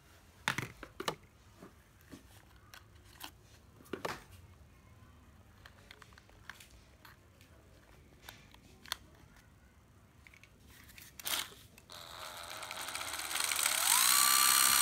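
Scattered clicks and knocks as a Makita 12V cordless drill is handled. About twelve seconds in, the drill's motor starts and its whine rises in pitch as the variable-speed trigger is squeezed, then holds steady and loud at full speed.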